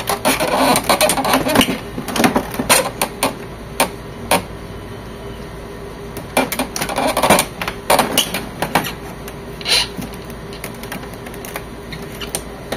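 Irregular plastic clicks, knocks and rattles as the scanner unit of an HP Officejet 7612 printer is unlatched and worked free of the printer body. The clatter comes in clusters, busiest at the start and again about seven seconds in, with one sharp knock near ten seconds.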